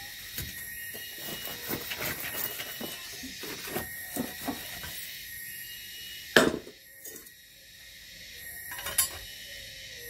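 Metal tools and a steel workpiece being handled: a run of light clinks and knocks, then one sharp loud knock about six seconds in and another clack near the end, over a steady high hiss.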